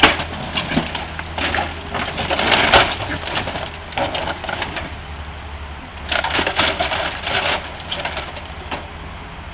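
Excavator engine running low and steady, with irregular bursts of metal creaking, crunching and clattering as the excavator's bucket and thumb crush and gather the car's wreckage, loudest about two to three seconds in and again about six to seven seconds in.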